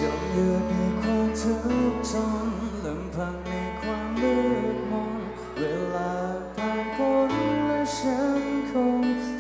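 Live rock band playing a slow song: a sung lead vocal over electric guitars, bass and drums, with a few cymbal crashes.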